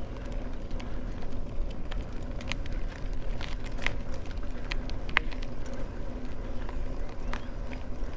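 Mountain bike rolling over cracked, gritty asphalt: a steady low rumble and hum from the tyres, with frequent short clicks and rattles as the bike goes over cracks and loose grit.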